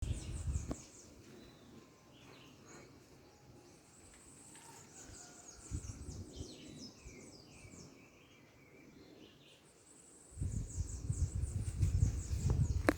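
Small birds chirping in rapid, high, short calls throughout, with bursts of low rumbling noise, the loudest from about ten seconds in to the end.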